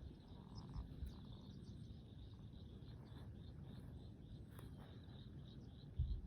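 Faint, steady chorus of rapid high-pitched animal chirps, several a second, over a low rumble, with a single knock near the end.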